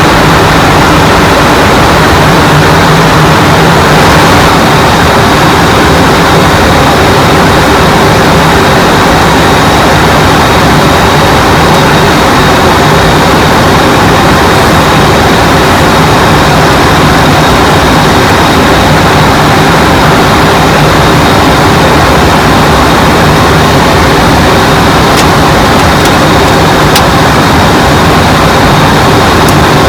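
Steady, loud noise of airflow and jet engines heard inside an airliner's cockpit in flight, with a low hum and a thin high tone running through it.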